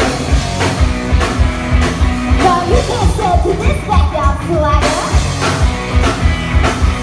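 Rock-and-roll band music with a steady beat of drums and bass, and pitched lines bending over it.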